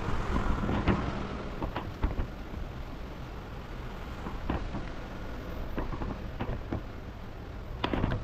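Steady low rumble from a camera microphone carried by someone walking, with irregular light taps of sandalled footsteps on a wooden floor; the loudest taps come near the end.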